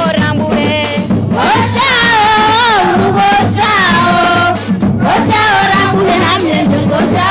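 Group of women singing a Comorian sambé dance song together, their voices gliding and wavering, over a steady drum beat.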